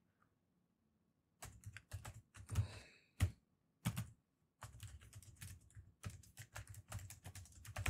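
Typing on a computer keyboard: irregular runs of keystrokes that start about a second and a half in and go on until near the end.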